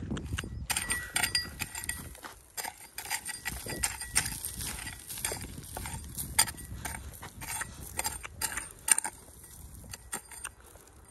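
Small hand hoe with a flat steel blade chopping and scraping into dry, stony soil in quick, irregular strokes, with loosened gravel and pebbles clattering and trickling down. The strokes thin out near the end.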